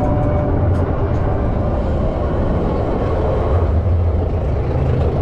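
Expedition Everest roller coaster train climbing its lift hill: a steady low rumble.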